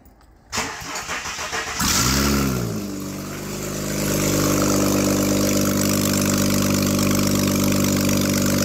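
Ford AU Falcon engine being cranked by the starter, catching after about a second with a brief rev flare that rises and falls, then settling to a steady idle through its upgraded exhaust.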